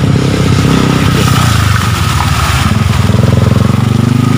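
Motorcycle engine running steadily at low speed close by, over a steady hiss.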